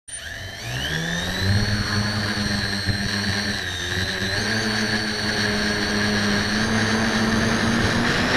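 A Windestal-style tricopter's three brushless electric motors and propellers spooling up for takeoff, rising in pitch over the first second or so. They then hold a steady whine and buzz in flight, stepping up a little about halfway through.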